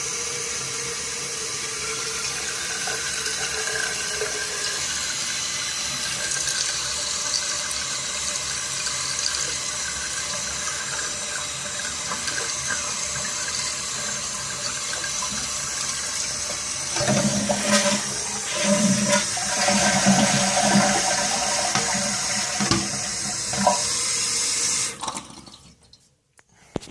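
A toilet running non-stop, water hissing steadily as it keeps flowing into the tank and bowl. About two-thirds of the way through, louder, uneven water sounds join in. Then the sound cuts off abruptly near the end.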